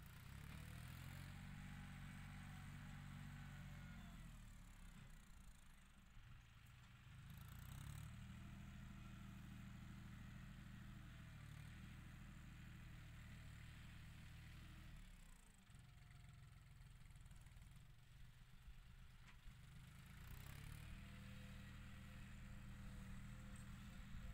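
Faint diesel engine of a John Deere 5045 tractor working a field, its revs rising and falling in cycles: it picks up about three times (near the start, about eight seconds in, and near the end) and eases back in between as it pushes soil.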